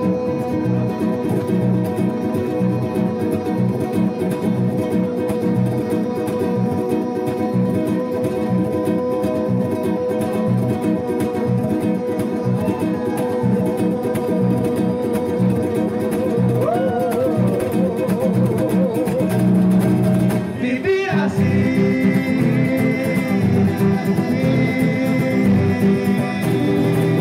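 Live guitar music with a melody of long held notes, one of them wavering in pitch near the middle; the music moves into a new passage about three-quarters of the way through.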